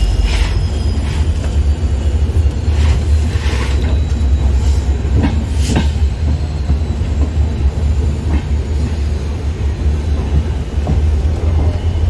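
Express passenger train running on the track: a steady low rumble with a few separate knocks from the coach and wheels.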